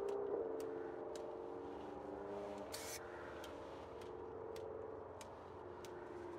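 Car engine running nearby: a low steady hum whose pitch drifts slightly. Faint sharp clicks come about twice a second, and a brief hiss comes about three seconds in.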